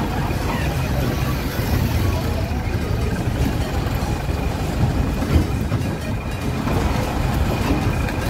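Steady low rumble of a moving bus, engine and road noise, heard from inside the passenger cabin by an open window.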